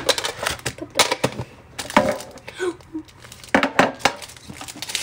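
Foil pack wrapper crinkling and crackling in the hands, with irregular sharp clicks and rustles of handling as the pack comes out of its tin.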